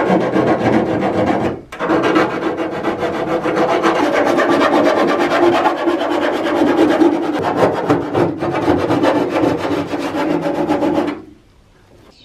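Small sanding block rasping back and forth along the freshly cut edge of a steel car bonnet panel, smoothing off the sharp burred edge of a vent hole. The fast scraping strokes run loud and continuous, with a short break about a second and a half in, and stop about a second before the end.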